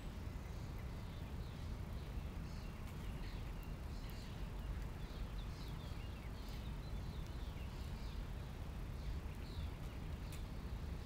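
Small birds chirping in short, repeated calls over a steady low rumble, with a brief click near the end.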